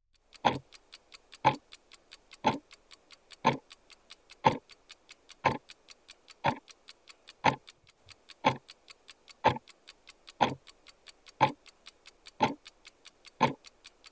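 Steady rhythmic ticking: a louder, deeper tick once a second with quieter ticks in between.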